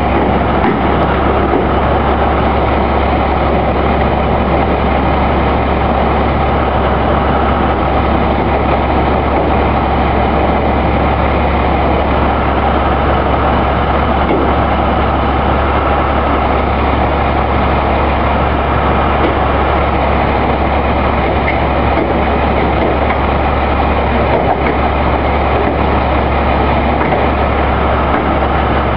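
Truck engine running steadily, a loud, continuous, unchanging rumble.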